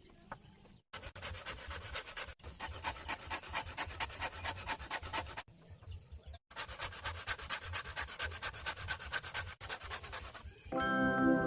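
Rapid, evenly repeated scraping strokes from a hand tool working material, about four or five a second, in two runs broken by abrupt cuts. Music comes in near the end.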